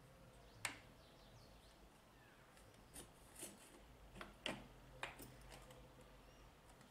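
Near silence with a few faint, short clicks and knocks: one about a second in and a handful between three and five seconds in.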